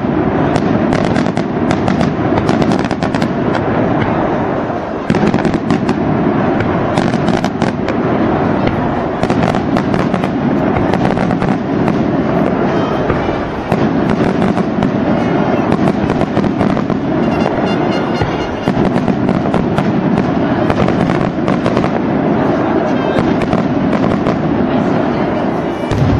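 Dense barrage of daytime fireworks: firecrackers bursting in the air, cracking and banging nonstop at many reports a second.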